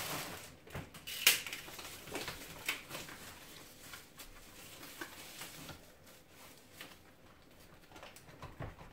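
Plastic packaging wrap rustling and crinkling as it is handled, with scattered light knocks, the loudest about a second in; quieter in the second half.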